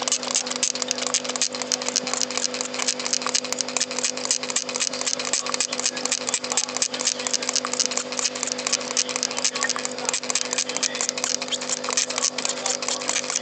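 Hand mist sprayer spraying water in quick repeated squirts, a fast run of sharp clicks and hiss several times a second, over a steady low hum.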